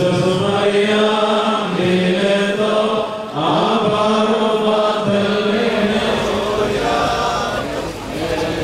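Men's voices chanting a slow Syriac Orthodox liturgical chant, with long held notes that change pitch slowly and pause briefly a few times.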